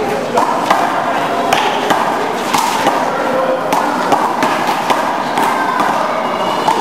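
Handball rally: the small rubber ball slapping hard off players' hands and the court walls in a quick, irregular string of sharp smacks, echoing in the walled court over a steady background noise.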